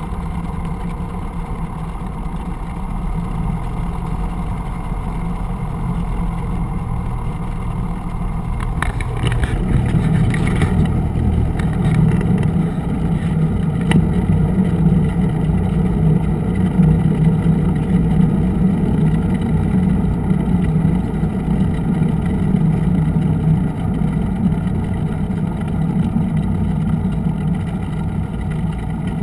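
Cessna single-engine piston airplane's engine and propeller running steadily as heard from inside the cabin while the aircraft rolls on the ground. The engine gets louder about ten seconds in and eases off slightly near the end.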